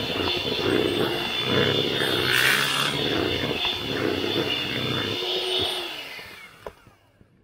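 Electric hand mixer running, its beaters whisking cake batter in a plastic bowl. Near the end it is switched off: the motor winds down and stops about six seconds in, followed by a click.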